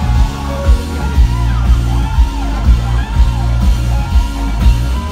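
Live rock band playing on stage: a steady, heavy drum and bass beat with a singer's voice over it.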